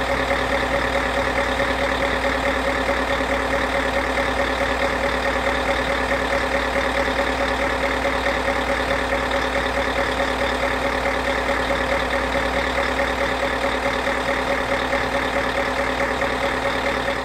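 An engine idling steadily, an even hum with a fast, regular pulse and no change in speed.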